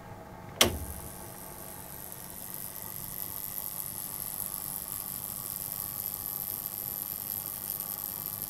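Spark plug igniter for a homemade turbojet sparking continuously: a steady buzzing hiss with a high-pitched whine. A sharp click sounds about half a second in.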